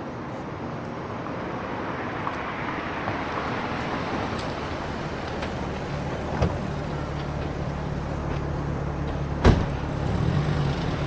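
Road traffic noise with a car engine running; its low hum grows steadier from about halfway. There is a sharp thump about three quarters of the way through.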